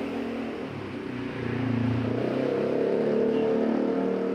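A motor vehicle engine running, growing louder about a second in and easing off near the end.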